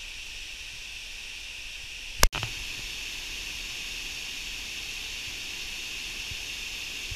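Steady rush of a waterfall, an even hiss of falling water, broken once by a sharp click just over two seconds in.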